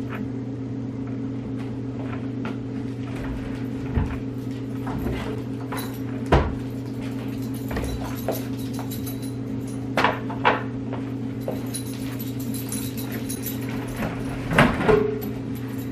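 Scattered knocks and clunks of household items being handled and moved, a stepladder among them, over a steady low hum.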